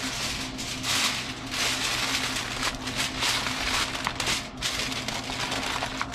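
Aluminum foil crinkling and crackling as a sheet is pulled over a disposable aluminum pan and pressed down around its rim, with a faint steady hum underneath.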